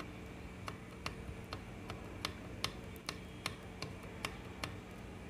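Light, evenly spaced ticking, about two and a half ticks a second, over a steady low hum.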